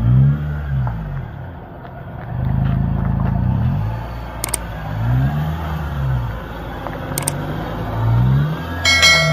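Honda City sedan's engine revving up and falling back in several short rises as the car is manoeuvred back and forth into a parking spot. A short high beep comes near the end.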